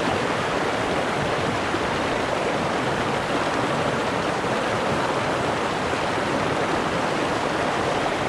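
Small mountain creek's water rushing steadily.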